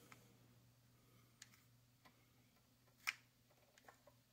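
Near silence with a low hum, broken by a few faint clicks from a hot glue gun being worked; the plainest click comes about three seconds in.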